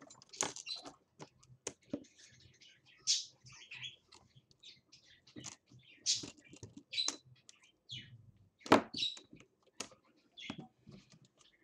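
Handling noises from a laptop's plastic screen bezel and bench tools: scattered clicks and taps with brief high squeaky scrapes, and one sharper knock about nine seconds in.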